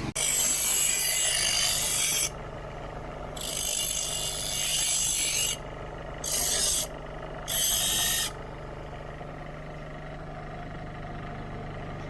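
Rough rasping scrape on a metal bus air-suspension part in four strokes: two long ones, then two short ones ending about eight seconds in. A steady low hum runs underneath.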